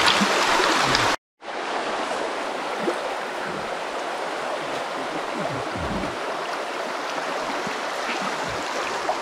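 Creek water rushing steadily. The sound cuts out for a moment about a second in, then carries on a little quieter.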